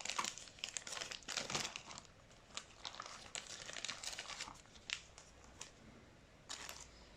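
Foil wrapper of a trading card pack crinkling and tearing as it is opened and handled: a dense run of crackles in the first couple of seconds, then scattered single crinkles.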